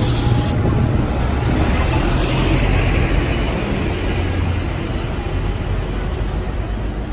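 London double-decker buses running past close by in street traffic: a steady engine rumble with road and tyre noise, easing slightly toward the end. A short hiss right at the start.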